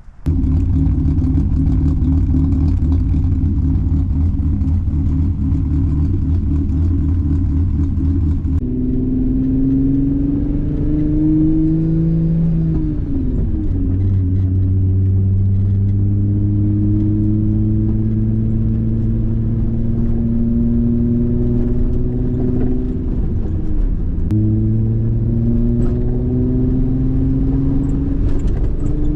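Volkswagen VR6 engine and exhaust under way. It holds a steady speed at first, then pulls up through the revs with two upshifts, each one a brief dip in pitch before the engine climbs again.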